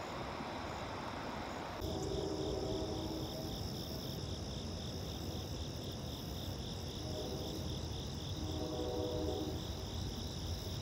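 Crickets and other insects chirping in a field: an even pulsing chirp about four times a second over a continuous high trill. They take over from a steady rushing noise about two seconds in.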